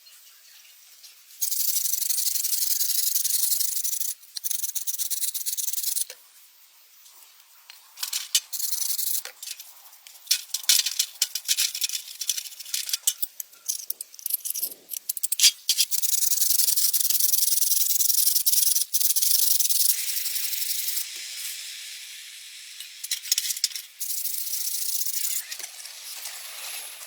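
Steady hissing in sharp on-off bursts of two to four seconds, like a jet of air or spray, with scattered clicks and rattling between the bursts.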